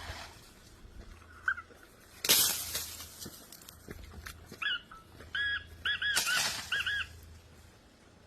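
Black francolin (black partridge) calling: a short run of repeated, arched, rasping notes near the end. There are also two short noisy bursts, about two seconds in and about six seconds in.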